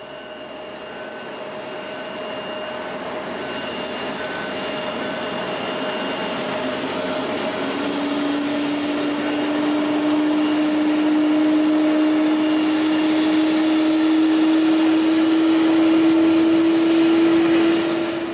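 Boeing 787 jet engines running, growing steadily louder, with a strong high hiss and a whining tone that comes in about halfway and rises slightly.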